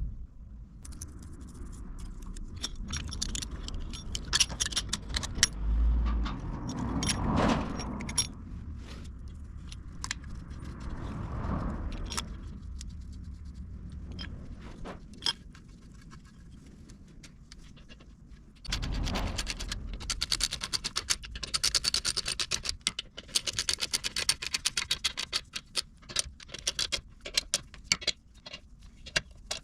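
Metal parts and hand tools clinking, scraping and rattling while a rear hub seal carrier is fitted and bolted up on a VW Beetle's rear axle. There is a dense run of fast metallic clicking about two thirds of the way through.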